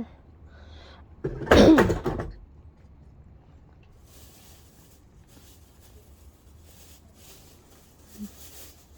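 A short, harsh, cough-like vocal sound lasting about a second, a second or so in. Afterwards only faint, soft hissy sounds come and go.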